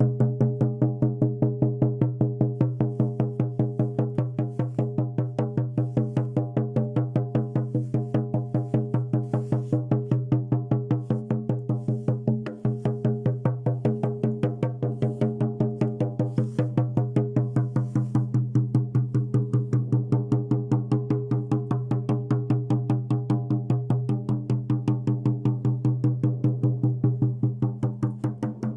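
Music: a steady low drone with a fast, even beat of about four to five strokes a second running under it.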